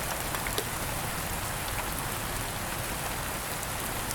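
Steady rain falling on a surface, an even hiss with a few separate drops ticking.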